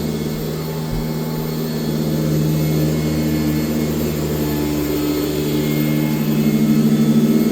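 1996 Sanitaire S663 upright vacuum cleaner running steadily, its motor giving a constant hum, a little louder near the end.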